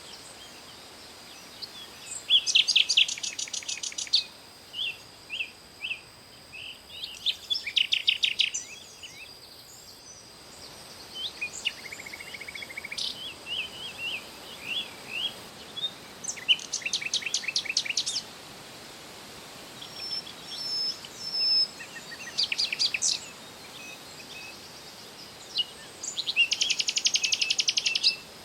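Songbird singing: a fast, dry trill of rapid repeated notes lasting a second or two, given five or six times, with short single chirps in between.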